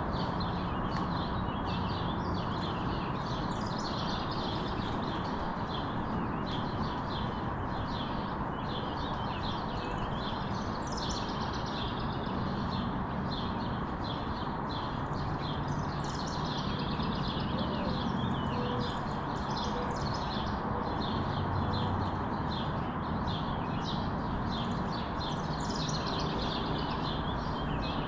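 Songbirds chirping in a dense morning chorus of quick, repeated high notes, over a steady low background hum.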